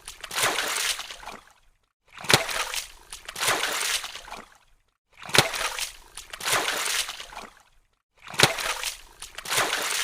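Water splash sound effect repeated about every three seconds. Each is a sharp splash followed by a sloshing wash lasting a second or two, with dead silence between them.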